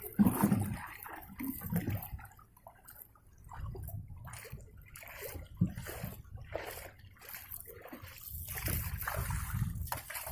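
Sea water sloshing and splashing in irregular surges, as if lapping against a small boat, with a couple of sharp knocks.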